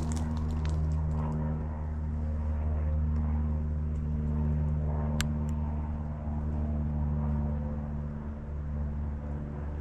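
A steady low engine-like hum, even and unchanging, with a single sharp click about five seconds in.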